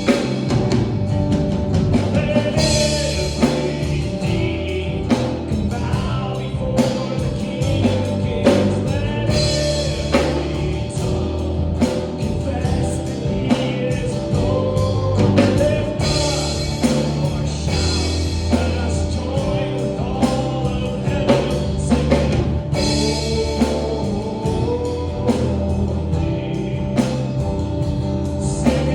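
Live worship music: a band with drum kit, bass and guitar playing while singers lead a gospel-style song.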